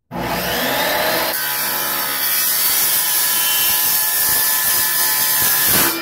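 Porter-Cable miter saw spinning up with a rising whine, then its blade cutting through 2-inch PVC pipe, steady for several seconds; the sound changes about a second and a half in as the blade goes into the pipe, and stops just before the end.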